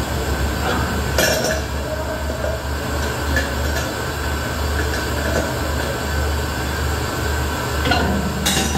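Steady low machine hum at a nitrogen cylinder filling rack, with sharp metallic clinks of cylinders or fittings about a second in and again near the end.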